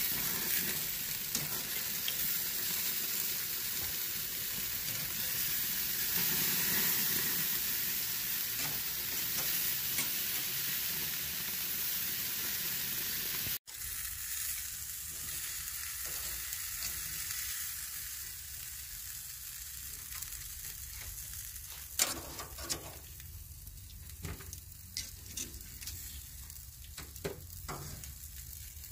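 Octopus and shrimp sizzling on hot barbecue grill grates, a steady hiss that drops off sharply about halfway through and carries on fainter. In the second half, metal tongs click sharply against the grate a few times.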